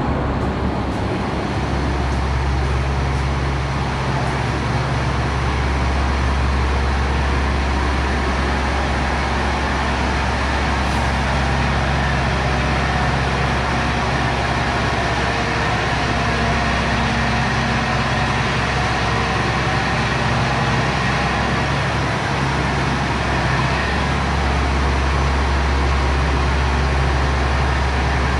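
John Deere row-crop tractor's six-cylinder diesel engine running steadily close by, its low engine note unbroken.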